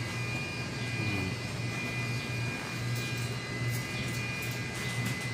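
A steady low machine hum with a faint, even high-pitched whine over it, running without a break.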